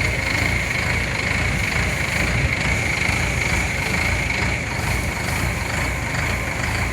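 WORLD 4LZ-4.0E combine harvester running, its 88 hp engine a steady low rumble with a steady high whine over it.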